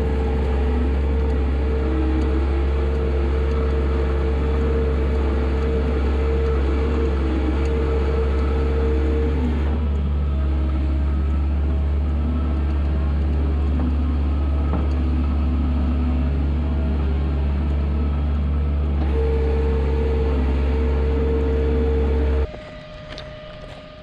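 Becker bedding spreader running behind its tractor, blowing wood shavings mixed with lime out of its chute: a loud, steady machine drone with a deep rumble and a steady whine. The whine drops out for about ten seconds in the middle and returns, and the whole sound cuts off shortly before the end.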